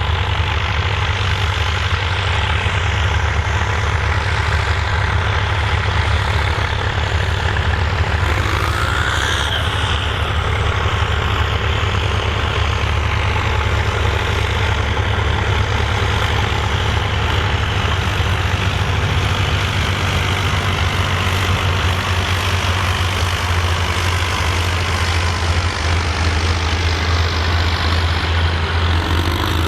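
Volvo BM farm tractor's diesel engine running steadily under load, pulling a plough.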